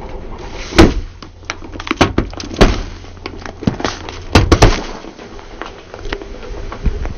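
Aluminium Coca-Cola cans crushed one after another under a car tyre: a series of sharp cracks and pops as the cans split and burst, loudest about a second in, with another close cluster around four and a half seconds, and smaller crackles between.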